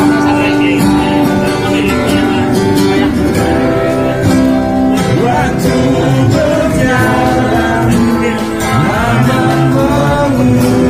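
Acoustic guitar strummed to accompany a man singing into a handheld microphone, the voice amplified through a loudspeaker.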